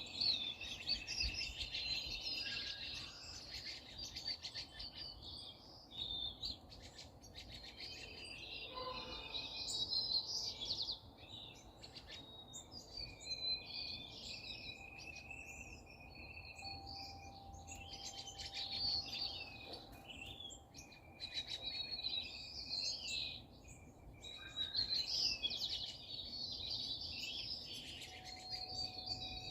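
Several songbirds chirping and singing at once, a continuous overlapping chorus of quick high chirps and trills, busier in some stretches than others.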